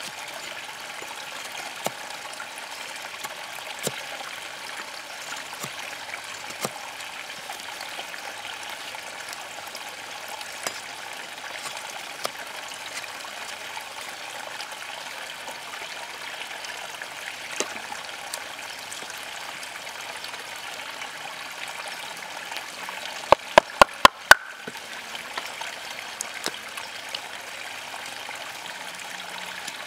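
Steady rush of flowing water, with scattered light clicks of a large Condor Hudson Bay knife cutting into a wooden stick as a tent stake is carved. About three-quarters of the way through comes a quick run of about six sharp knocks within a second.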